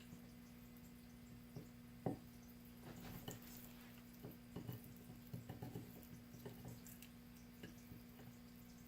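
Faint, scattered soft wet sounds and light taps of raw chicken pieces and a knife being handled on a cutting board, with one sharper tap about two seconds in, over a steady low electrical hum.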